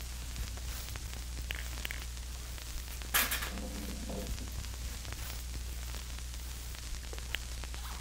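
Steady low electrical hum with hiss. About three seconds in there is one short, noisy scrape or rustle.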